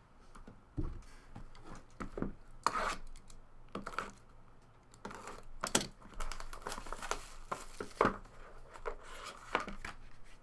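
Plastic wrapping on a sealed trading-card box being torn open and crinkled, in a series of irregular rustles and sharper crackles.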